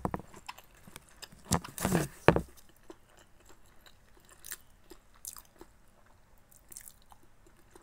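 A person chewing steamed siomai dumplings close to the microphone. Soft scattered chewing clicks, with a few louder ones about two seconds in.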